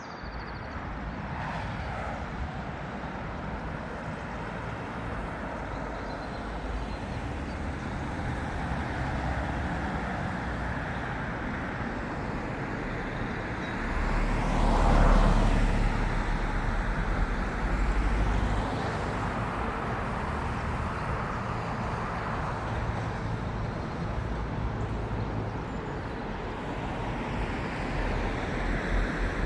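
Road traffic: a steady hum of cars going by, with a vehicle passing close and louder about halfway through.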